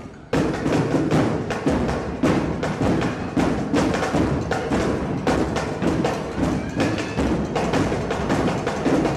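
Drum-driven music with a fast, steady beat of sharp percussion hits, loud throughout.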